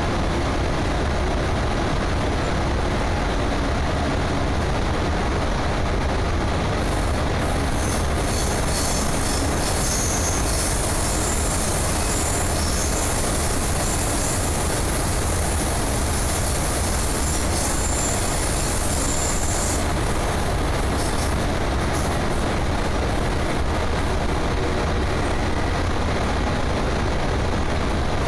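Running noise of a CityRail OSCAR electric train heard inside the carriage: a steady rumble of wheels on track. A high-pitched wheel squeal rises over it about seven seconds in and dies away about twenty seconds in.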